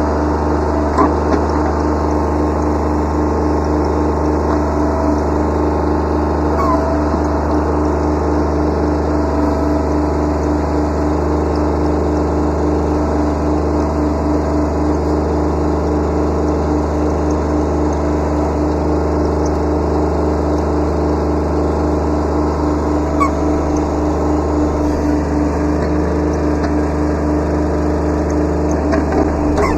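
Kubota B7100's three-cylinder diesel engine running steadily under work, with a few faint short squeaks.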